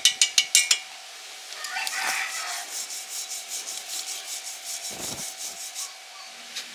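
A chipping hammer knocks slag off a stick weld in a few quick strikes, then a wire brush scrubs the weld bead in short rapid strokes.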